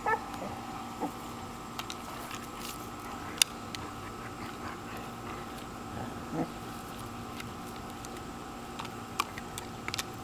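Basset hounds nosing and chewing at a small toy in the grass: soft scuffling with scattered sharp clicks, one click about three seconds in the loudest, over a steady faint hum.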